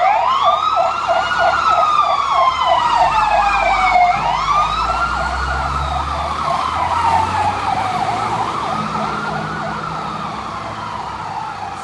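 Fire rescue truck sirens: a slow wail rising and falling about every four seconds over a fast warbling yelp, growing fainter toward the end as the truck drives off. The truck's engine rumbles as it pulls away.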